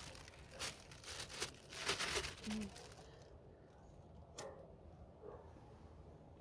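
Crinkly material being handled: rapid rustling and crinkling for about three seconds, then quiet apart from one sharp click.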